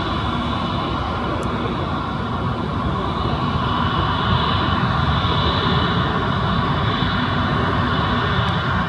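Airbus A320neo's Pratt & Whitney geared turbofan engines at taxi power as the jet lines up on the runway: a steady whine over a low rumble, growing a little louder about three seconds in.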